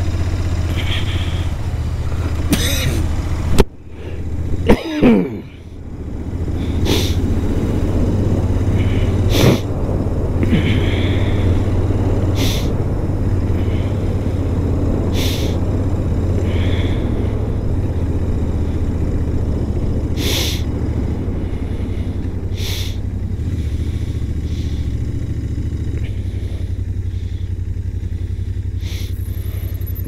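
Royal Enfield Interceptor 650's parallel-twin engine running steadily while riding, with wind and road noise. The rider, whose throat is sore and hoarse, coughs and clears his throat several times, loudest about five seconds in.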